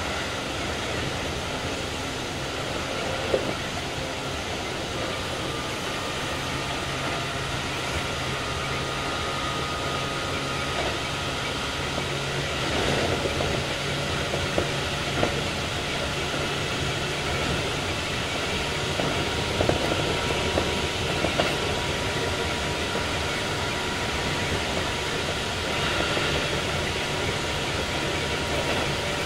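Keikyu 2100 series electric train with Toyo IGBT VVVF inverter drive running along the line, heard from inside the car: a steady rolling rumble of wheels on rail with a few sharp knocks from rail joints or points.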